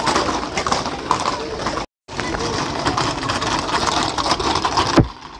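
Noisy street crowd, many voices talking and shouting at once. The sound cuts out completely for a moment about two seconds in, and a single sharp knock comes near the end.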